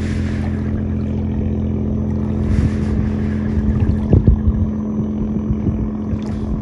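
Motorboat engine on the river running with a steady, even drone.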